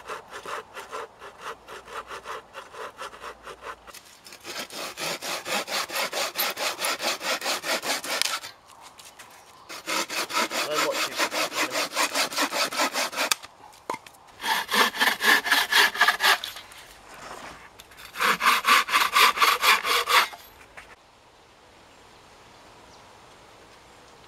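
Hand saw cutting through dead-wood poles with fast back-and-forth strokes, in five runs of a few seconds each, with short pauses between them.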